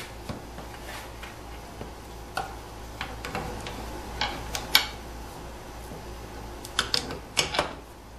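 Adjustable wrench clicking and clinking against metal pipe fittings as a ball valve is screwed onto a threaded heater port: irregular light taps, with clusters of sharper clinks about four to five seconds in and again near seven seconds, over a low steady hum.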